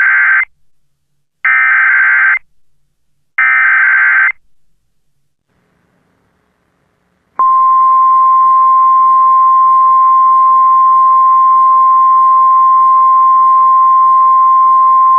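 Emergency Alert System tones from a mock NOAA Weather Radio alert: the SAME header's short bursts of digital data tones, three in all about two seconds apart. After a pause of about three seconds comes the steady, single-pitched 1050 Hz Weather Radio alert tone, which runs on without a break.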